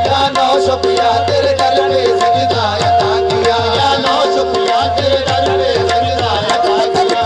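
Qawwali party's instrumental interlude: harmoniums playing a melody in held, repeating notes over a steady hand-drum rhythm.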